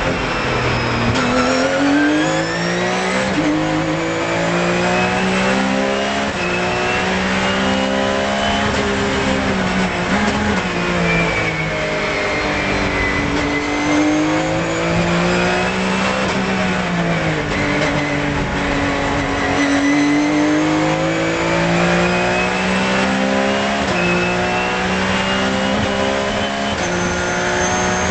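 Porsche 997 GT3 Cup's flat-six racing engine heard from inside the cockpit, accelerating hard with its pitch rising and falling several times as the driver lifts for corners and shifts up through the gears. A couple of quick upshifts come near the end.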